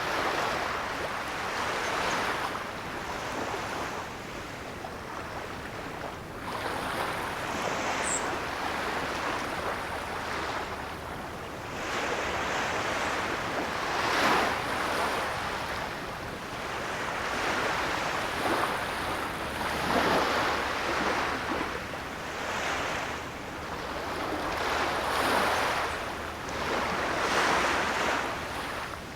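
Ocean waves breaking and washing on the shore, a steady surf noise that swells and falls back every few seconds.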